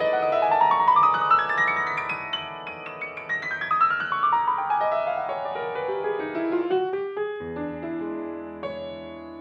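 Grand piano played solo in classical style: quick rising runs of notes, then busy passagework, a deep bass note struck about seven seconds in, and a chord left ringing and fading near the end.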